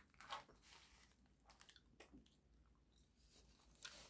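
Near silence broken by faint, scattered clicks and soft food-handling sounds as fingers pick up street-taco fillings from a paper-lined plate, with a soft bite near the end.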